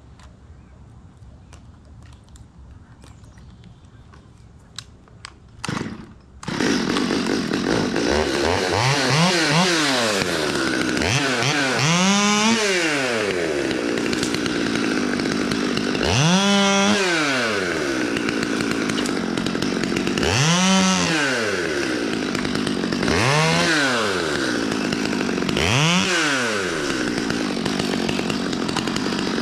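Stihl 020 chainsaw starting about six seconds in, then revved up to full throttle and let back down about six times, its pitch climbing and falling each time.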